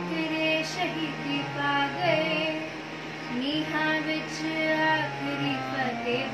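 A young girl singing a slow devotional melody, over steady held low notes that change pitch every second or two.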